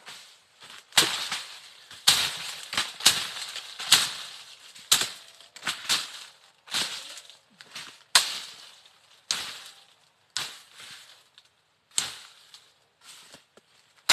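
Machete slashing through dense grass and brush: a sharp swishing chop about once a second, each followed by a short rustle of cut vegetation, with a few longer pauses in the second half.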